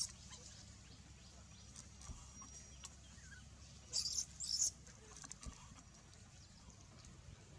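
Newborn macaque infant giving short, faint, high-pitched squeaks: one at the very start and two close together about four seconds in, with light ticks and rustles from it moving on dry leaves.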